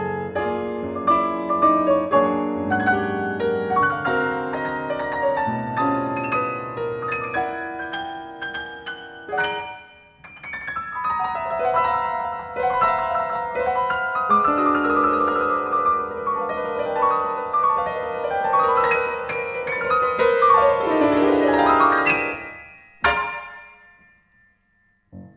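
Solo grand piano playing classical music, with a brief lull about ten seconds in. Near the end a short, sharply struck chord rings out and the sound dies away.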